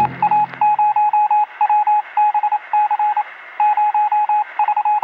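A single-pitch electronic beep sounding in irregular groups of short and longer pulses, while the end of a brass music sting fades out in the first second.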